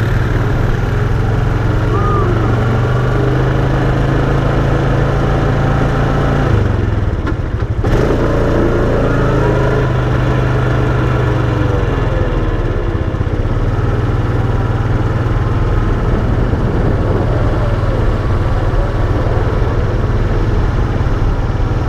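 Quad bike engine running steadily as the bike rides along, heard close up from the handlebars, with a brief dip in the sound about seven seconds in.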